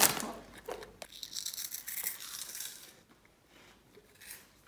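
A snack bag crinkling at the start, then Cheetos cheese snacks being crunched between the teeth, a faint, irregular dry crackle that dies away after about three seconds.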